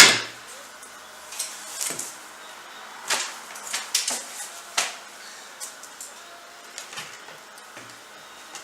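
A sharp knock right at the start, followed by a scatter of lighter knocks and clicks: objects being picked up and set down on a work surface.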